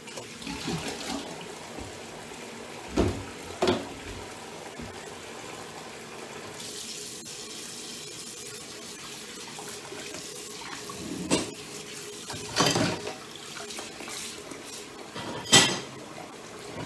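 Water running from a kitchen tap into the sink, with about five sharp knocks and clatters at the sink, the loudest near the end.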